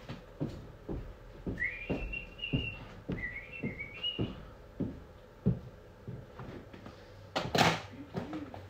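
A person whistling two short wavering phrases, amid light knocks and clatter of things being handled, with a brief louder noise near the end.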